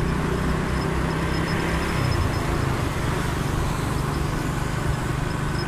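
Motorcycle engine running on the move with road and traffic noise around it; the engine note shifts about two seconds in.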